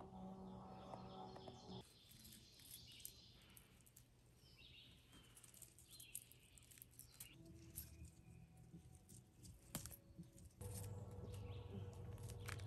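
Faint outdoor quiet with small birds chirping softly and a few light clicks and rustles; a low steady hum comes in near the end.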